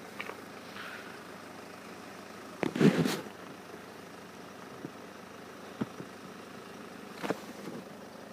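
Faint steady outdoor background noise, with one brief loud rustling bump about three seconds in and a few soft clicks later.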